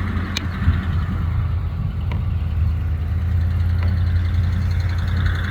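Car engine idling steadily, a low hum, with a few faint clicks on top.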